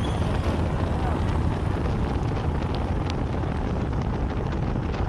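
Steady low wind rumble on the microphone with road noise from a vehicle travelling along the road.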